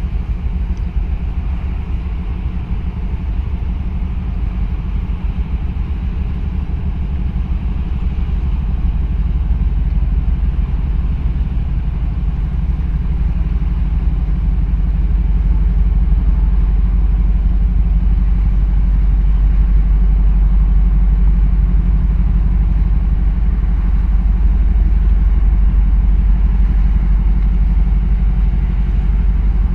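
Deep, steady engine rumble of a large container ship passing close by, growing louder through the first half and then holding.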